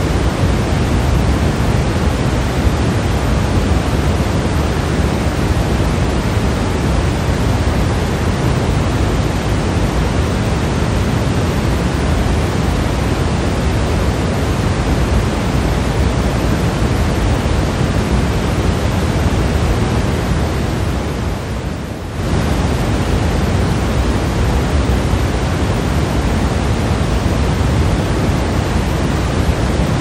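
Steady pink noise: an even, unbroken hiss weighted toward the low end. About 21 seconds in it sags briefly, then snaps back to full level.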